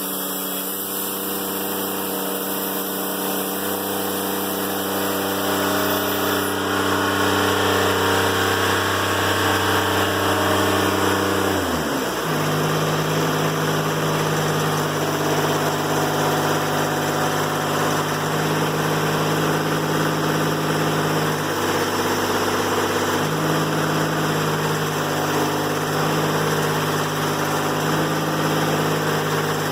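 Diesel engine of a Timberking 1400 sawmill running steadily, with a rushing hiss over it. About twelve seconds in, its pitch drops and settles lower, then holds.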